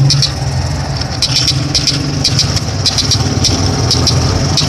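Engine of a passenger vehicle running steadily, heard from inside the crowded cabin, with bursts of light rattling coming every second or so.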